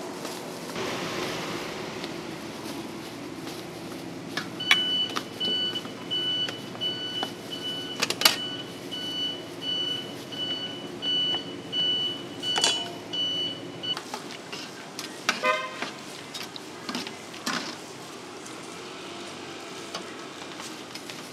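Metal spatula scraping and tossing shredded cabbage and carrot on a hot steel griddle, with irregular clacks of the blade on the steel. From about five seconds in until about fourteen seconds, a high electronic beeping repeats about twice a second over it.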